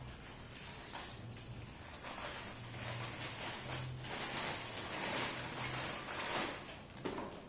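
Clear plastic packing bag crinkling and rustling as hands handle and unwrap a small part, busiest through the middle stretch.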